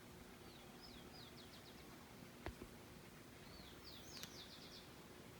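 A small songbird singing two high phrases, each a few slurred notes followed by a quick run of short notes, over quiet forest background. A single sharp click comes about halfway through.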